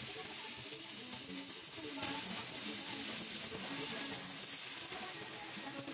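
Gas welding torch flame hissing steadily as it heats and welds an aluminium motorcycle crankcase, with filler rod fed in; the hiss grows louder and brighter about two seconds in.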